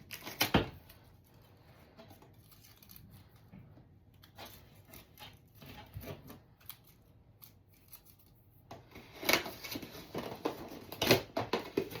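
Toy packaging being opened and handled: cardboard and plastic rustling with scattered clicks, a couple of sharp clicks about half a second in and a louder stretch of crinkling and snapping near the end.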